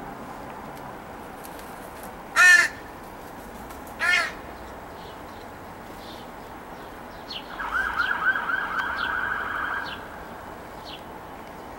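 Crows calling: two loud single caws about two and a half and four seconds in, then, near the eight-second mark, a drawn-out call of quick wavering notes lasting about two and a half seconds.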